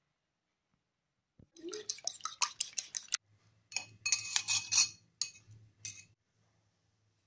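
Metal fork clinking and scraping against a ceramic bowl of beaten egg in quick repeated taps, as a ball is rolled through the egg. The taps come in two spells of a second or two each, starting about a second and a half in.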